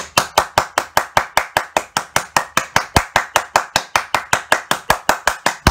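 Hands clapping in a steady, even rhythm, about six claps a second: a round of applause.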